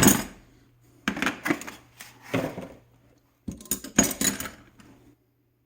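Steel combination ratcheting wrenches clinking and clattering against each other as they are handled, in several separate bursts of clinks.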